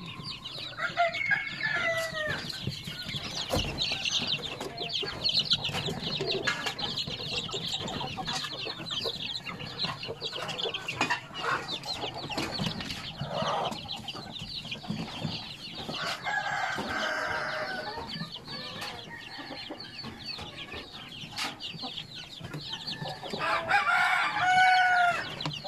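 A brood of young native chicks peeping without a break, many high chirps overlapping. A few louder, longer calls stand out near the start and again near the end.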